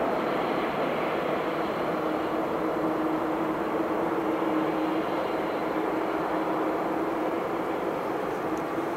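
Jet engines of a taxiing Boeing 747-400 freighter running at low taxi power: a steady rushing hum with a constant droning tone that grows a little stronger about three seconds in.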